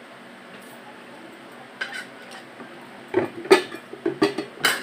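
Tableware clatter while eating and drinking: a bowl, a spoon and a drinking glass click and knock a few times. There is one click near two seconds in, then a run of sharp knocks over the last second and a half.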